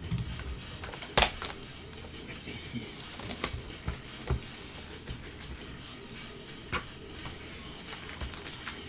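Gloved hands opening and handling a Panini Spectra basketball card box and its packs: scattered taps, clicks and rustling of cardboard and wrappers, with a sharp knock about a second in.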